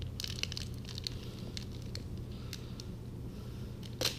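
Faint crinkling and light ticks of a plastic squid-hoochie package being handled and set down, with a brief louder rustle near the end, over a low steady hum.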